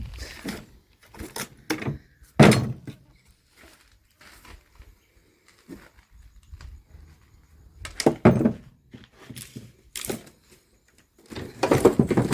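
Irregular knocks and thumps of objects being handled and moved about, the loudest about two and a half seconds in. There is a quiet stretch in the middle and a busier run of thuds near the end.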